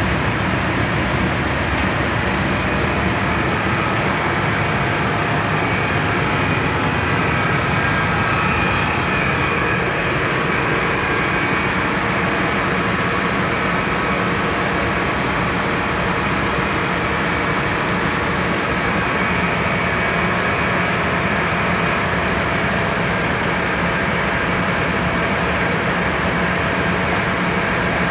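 Steady, unchanging machinery noise of a ship's waste-oil-fired incinerator running, its burner firing and combustion-air blower fan turning.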